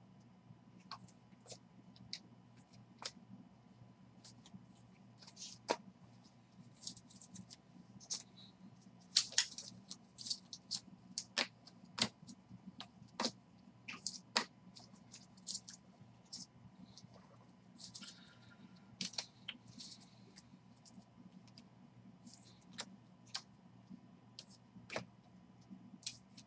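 Baseball cards, some in clear plastic sleeves, handled and sorted by hand: faint irregular clicks and short rustles as the cards slide and tap against each other, over a steady low hum.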